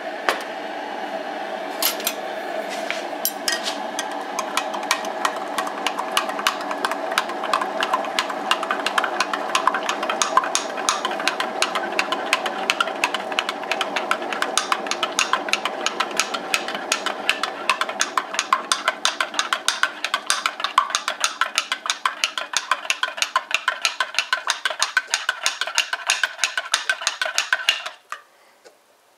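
Spoon stirring a drink in a ceramic mug, clinking against the inside several times a second, then stopping abruptly near the end.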